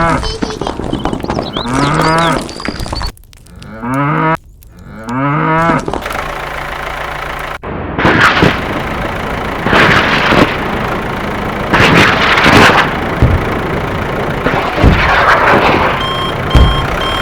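A cow mooing several times in the first few seconds, each call rising and then falling in pitch. It is followed by loud noisy surges about every two seconds, and short repeated beeps near the end.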